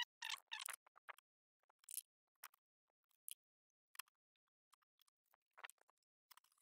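Small, sparse clicks and taps of a hand-held screwdriver being picked up and handled: a quick cluster in the first second, then single clicks every second or so, with near silence between.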